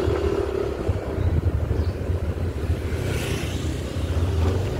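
Motorcycle engine running steadily while riding, with a low rumble and wind rushing over the microphone; a steady engine hum above the rumble fades out about a second in.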